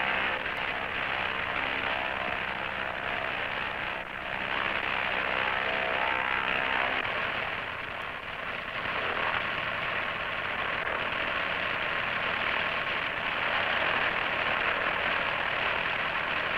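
Light single-engine airplane's engine and propeller drone, steady apart from two brief dips in level.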